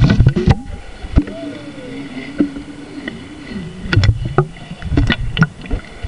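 Water sloshing and knocking against a camera sealed inside a plastic food container as it is moved underwater and breaks the surface, heard muffled from inside the box. There are sharp knocks and low rumbling at the start and again in the second half, and a steady low hum with a wavering pitch for a few seconds in the middle.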